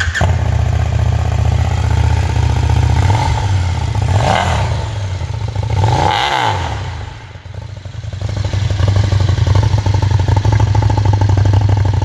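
Brabus 1300 R motorcycle's V-twin engine, just started, running and revved through its twin-tip exhaust: two short blips up and back down about four and six seconds in, then running louder and steadier near the end.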